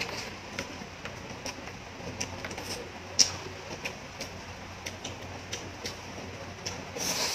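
Close-miked chewing of a mouthful of soft instant noodles: a run of small wet mouth clicks and smacks, with one sharper click about three seconds in. Near the end a noisy slurp of noodles starts.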